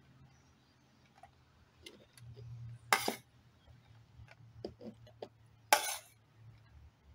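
Grated coconut being scooped into a plastic jar: two short, sharp clatters against the jar about three seconds apart, with a few light clicks between them.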